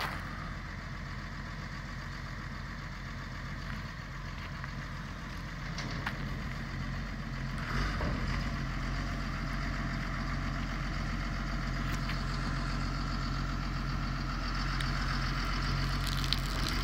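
John Deere 1110D forwarder's diesel engine running steadily, picking up in level about halfway through as its hydraulics start raising the high-tip load bin, with a short knock just before then.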